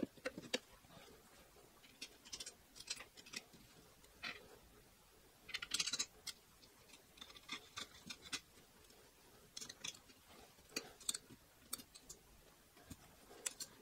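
Faint, scattered clicks and light taps of a hex key turning M5 bolts and small metal parts being handled on an aluminium-extrusion frame with plastic corner legs, a denser run of clicks about six seconds in.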